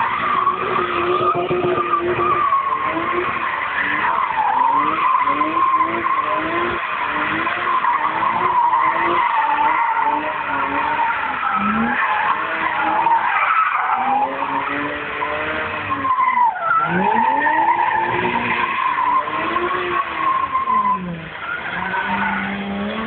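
BMW doing a burnout: its tyres squeal in a steady high screech while the engine revs up and down over and over. About two seconds before the end the squeal drops away and the engine holds a steadier, lower note.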